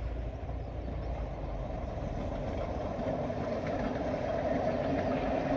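A vehicle engine running steadily, growing louder toward the end.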